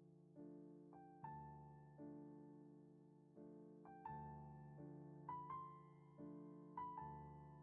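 Quiet background piano music: slow sustained chords with a simple melody of single notes on top, a new note or chord struck about every second.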